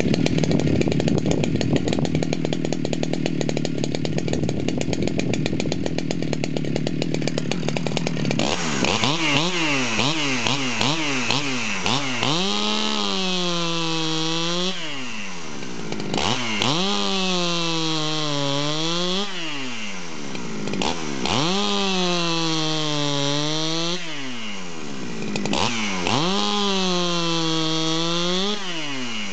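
Woods-ported Husqvarna 395XP two-stroke chainsaw, with a milled cylinder and pop-up piston, running at idle for about eight seconds and then revved hard. It then bucks a log in several full-throttle cuts of a few seconds each: the engine note sags under load and drops away as the throttle is released between cuts.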